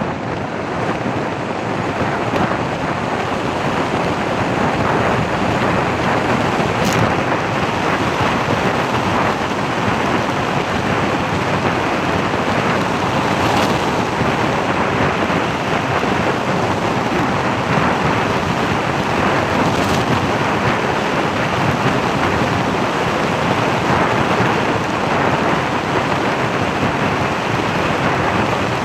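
Steady rushing wind and road noise from a moving vehicle, with three faint ticks spread through it.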